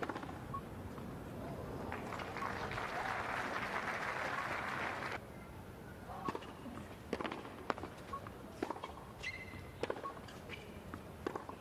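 Tennis crowd applauding, building for about five seconds, then cut off suddenly. After it comes the quieter court: the tennis ball bouncing and being struck by rackets in a rally, with a short squeak near the end.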